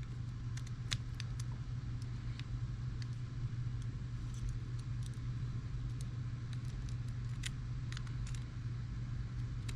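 Small scattered clicks and taps of airsoft pistol parts being handled while the grip safety is fitted into the Hi-Capa frame, over a steady low hum.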